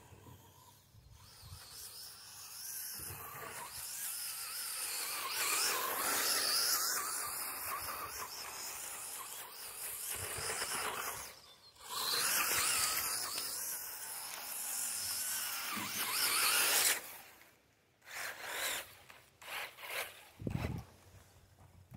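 WLtoys 124019 RC buggy's electric motor whining as it is driven fast over grass, the pitch rising and falling with the throttle. It cuts out briefly about halfway through, runs on, then stops, with a few short throttle bursts near the end.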